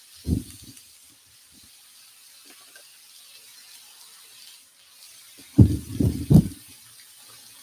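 Pork belly strips sizzling faintly on an electric grill pan, a steady soft hiss. About two-thirds of the way through, a few short loud vocal sounds rise over it.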